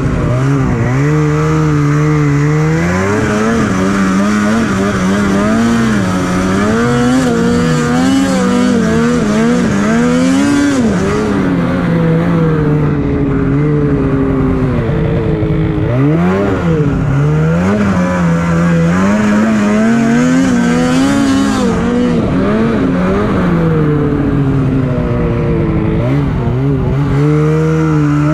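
Snowmobile engine running under hard throttle, its pitch repeatedly climbing and dropping as the throttle is worked on and off.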